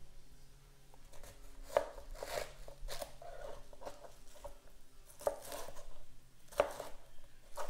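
Kitchen knife chopping green cabbage on a plastic cutting board: irregular crisp cuts with knocks of the blade on the board, the sharpest about two seconds in and again near the end.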